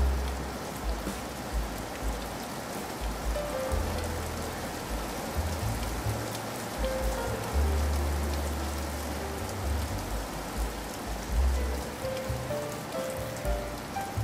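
Heavy rain falling steadily, an even hiss with drops pattering, under soft background music: deep held bass notes and a slow, faint melody of single notes.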